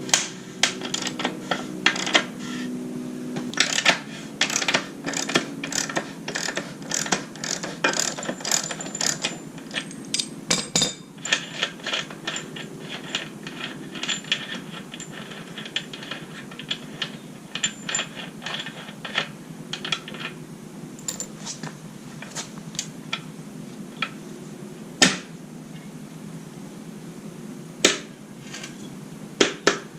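Ratchet wrench with a large socket clicking rapidly as it spins the already loosened rear axle nut off a motorcycle, then slower scattered clicks and a few louder single metal knocks later on.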